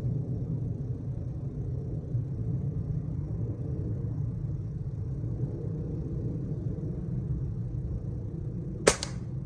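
A single shot from a Gamo Raptor Whisperer .22 break-barrel air rifle near the end, one short sharp crack, over a steady low rumble.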